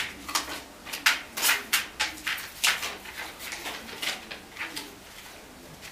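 German shepherd breathing and moving as it picks up a banknote from the floor and carries it. A string of short noisy sounds, two or three a second, thins out near the end.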